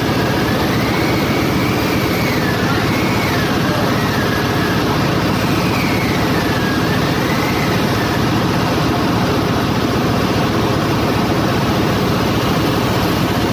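Steady, loud machinery din of a ship's engine room. A thin, wavering high tone rises and falls over it during the first half.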